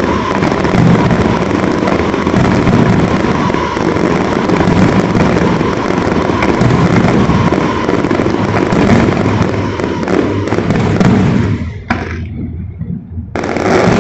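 Fireworks display: a dense, continuous barrage of bursts and booms that thins out briefly about twelve seconds in, then comes back just as heavy.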